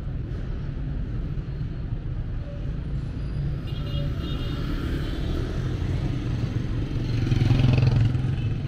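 City street traffic: a steady low rumble of cars and motor scooters moving along the road, rising as a louder vehicle passes close near the end.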